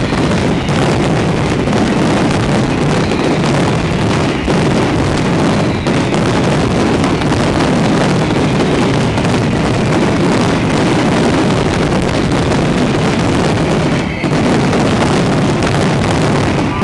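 Dense barrage of aerial fireworks shells bursting and crackling, the bangs so close together that they run into one continuous loud rumble, with a brief dip about two-thirds of the way through.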